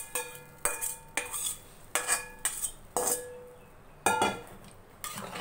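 Metal cookware clinking as sambar is scraped from a pan into a metal pressure cooker with a perforated ladle: about six sharp clanks, each ringing briefly, with wet scraping between them.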